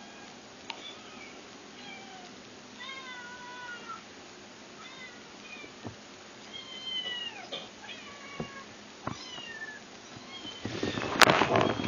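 Kittens in a cat video being played back, mewing over and over in short, high-pitched cries. Near the end comes a louder burst of clattering, rustling noise.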